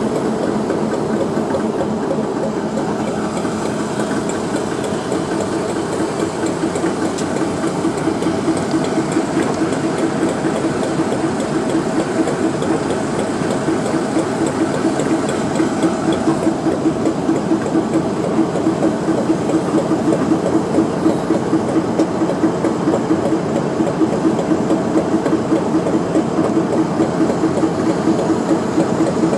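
Class 60 diesel-electric locomotive's Mirrlees engine idling while the train stands waiting at a signal: a steady, loud rumble with a rhythmic throb that grows a little stronger about halfway through.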